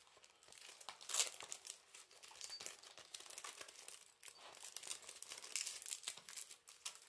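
Paper crinkling and rustling in irregular bursts as a sheet of die-cut craft paper is handled on a table, with a louder crackle about a second in.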